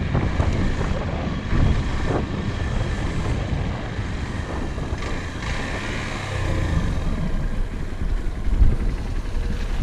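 A vehicle on the move: steady engine and road noise, with the engine hum swelling slightly about two-thirds of the way through.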